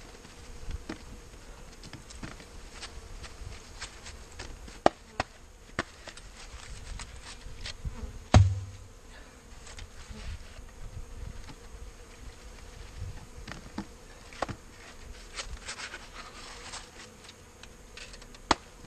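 Honeybees buzzing as a wooden package of bees is shaken out over an open hive box. Several sharp knocks from the wooden package come through, with one heavy thump about eight seconds in.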